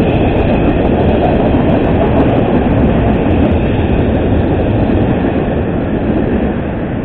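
Double-stack intermodal freight train's well cars rolling past at close range: a steady, loud rumble and roar of steel wheels on the rail, with faint clicking, easing slightly near the end.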